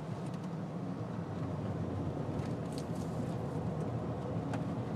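A car driving, heard from inside the cabin: a steady low rumble of engine and road noise, with a few faint ticks.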